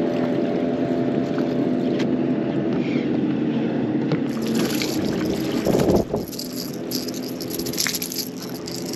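A boat motor hums steadily, with water splashing and trickling. About four seconds in, a crackling splash starts, and a loud thump comes near six seconds; the hum then fades while the splashing and dripping go on.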